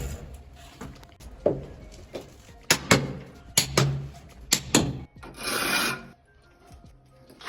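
Background music, with a series of sharp taps, several in close pairs, and a short scraping hiss about five seconds in.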